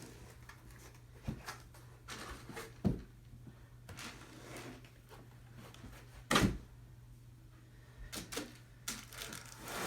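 Scattered knocks, taps and rustles of a tower speaker and its packaging being handled, with one heavier thump about six and a half seconds in.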